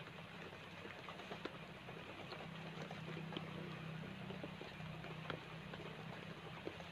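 Light rain pattering on banana leaves and vegetation, a steady hiss dotted with scattered small drop ticks, over a faint low steady hum.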